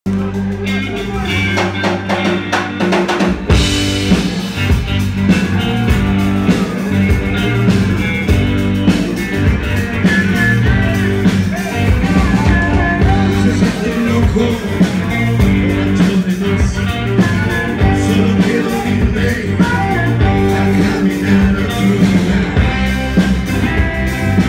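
Live rock band playing electric guitars, bass and drum kit. Drums and sustained low notes open, and the full band comes in about three and a half seconds in.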